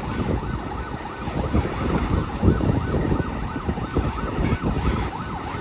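A siren yelping rapidly up and down in pitch, growing louder near the end, over the low rumble of heavy trucks' engines.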